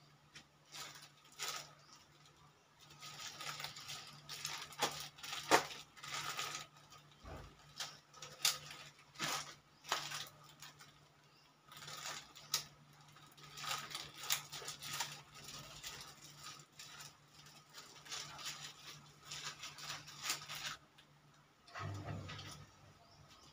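Rustling and scraping with light clicks and taps as gloved hands work at a kitchen counter, coming in irregular spells, over a faint steady hum. A short dull thump near the end.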